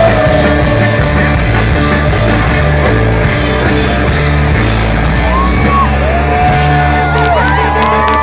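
Loud live rock band on an outdoor festival sound system, heard from among the crowd: heavy bass and electric guitar with voices singing and yelling.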